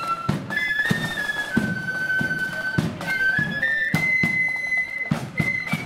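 Marching flute band playing a tune in unison on flutes, the melody moving in held notes, over steady drum beats including a bass drum.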